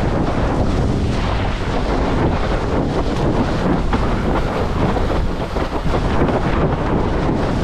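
Strong wind buffeting the microphone of a camera mounted on a windsurf boom while sailing: a loud, steady, low rumbling roar with no breaks.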